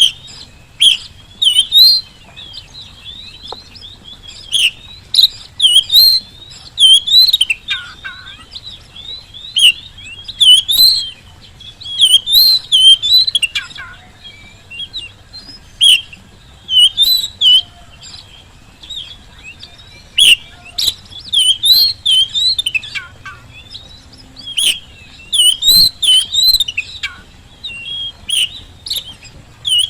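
Oriental magpie-robin in full song: loud, varied phrases of quick sweeping whistles and sharp chips, delivered in bursts every second or two with short pauses between.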